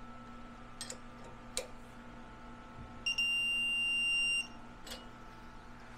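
Electronic torque wrench giving one steady high beep, about a second and a half long starting about three seconds in, signalling that the set torque is reached on a 10 mm cap screw. A few light metal clicks come before and after it.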